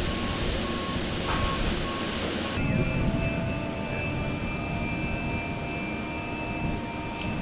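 Steady rumble and hum of heavy machinery running. At a cut about two and a half seconds in it changes to a mix with several steady high whining tones.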